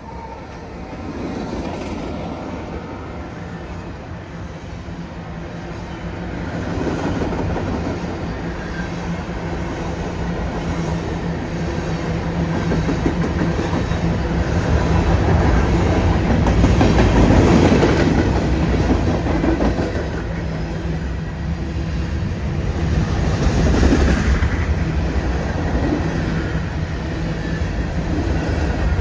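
Union Pacific freight train rolling past, its wheels clacking over the rail joints. It grows louder through the first half and is loudest about halfway through and again near the end.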